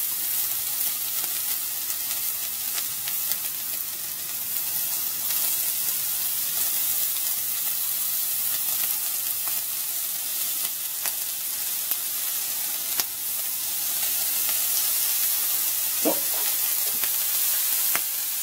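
Bacon strips frying on a hot enamel-coated Weber gas-grill griddle plate: a steady sizzle with scattered crackles of spitting fat.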